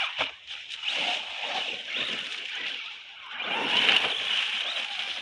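ZD Racing ZMT-10 electric RC monster truck driving over gravel and leaves in two bursts, the first about a second in and the second near four seconds.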